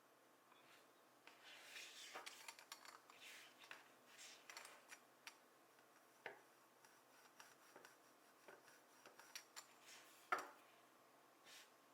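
Faint rubbing and scattered light clicks and taps from Play-Doh and small modelling tools being handled, with one sharper tap about ten seconds in.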